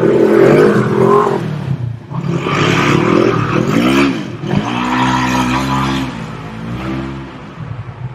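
Four-wheel-drive vehicle's engine revving hard as it is driven through a turn in dirt, its pitch swooping up and down several times. It fades near the end as the vehicle pulls away.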